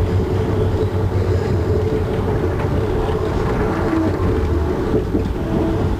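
Amtrak Northeast Regional train heard from inside a passenger coach while moving: a steady rumble of the wheels on the rails with a constant hum over it.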